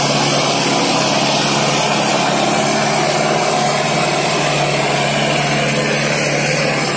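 Preet 6049 tractor's diesel engine running hard and steady under load while pulling a harrow at high speed, with a loud, even rushing noise over it.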